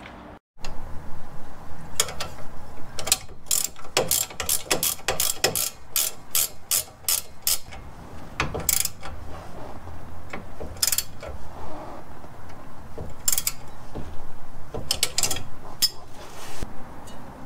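Hand ratchet wrench clicking as a suspension nut is run down: a quick run of sharp clicks, about three a second, then scattered clicks in short groups.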